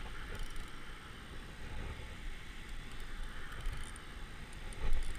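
Steady rush of water at a low river dam, with low wind rumble on the microphone and one louder low bump about five seconds in.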